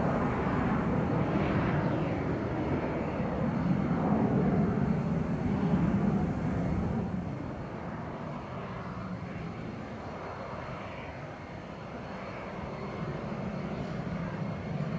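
Twin Williams FJ44 turbofans of a Cessna Citation CJ4 business jet climbing away after take-off: a distant jet rumble that wavers in level and drops noticeably about seven seconds in as the aircraft recedes.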